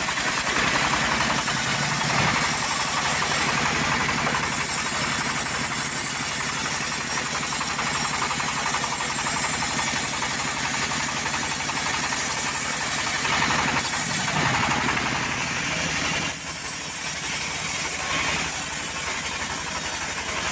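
Homemade bandsaw sawmill running, its blade cutting lengthwise through a teak log with a steady machine drone. The sound eases slightly about sixteen seconds in.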